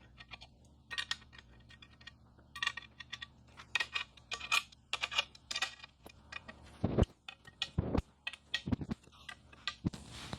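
Small metal clicks and ticks in irregular bursts as M8 flathead bolts are put into the billet aluminium luggage rack and tightened with a 5 mm hex key, with a few dull knocks about seven to nine seconds in.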